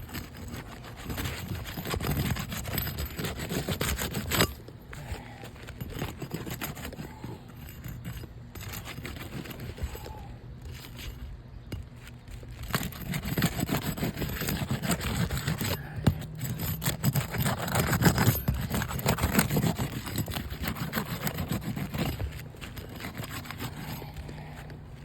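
Asphalt shingle being pried up with a roof snake, crackling and scraping as it is broken loose from its seal, in two longer spells.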